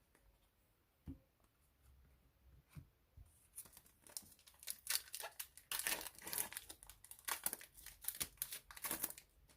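Trading card pack wrapper crinkling and tearing as it is opened, starting about three seconds in after a couple of soft knocks.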